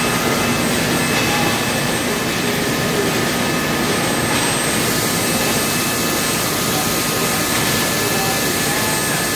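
Blown-film plastic extrusion line running: a steady, loud rush of blower air and machinery, with a few faint steady high whines over it.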